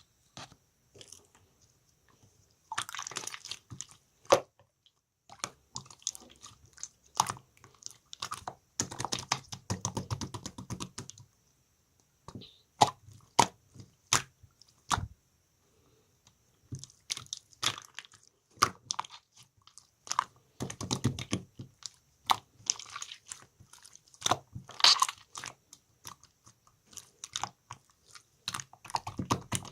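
Slime being squeezed, stretched and poked by hand, giving irregular crackling clicks and pops in bursts, with short pauses between handfuls.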